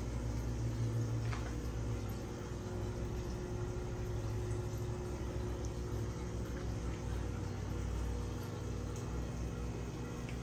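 Steady low hum with a soft hiss from running aquarium equipment, the air-driven sponge filter bubbling in the tank.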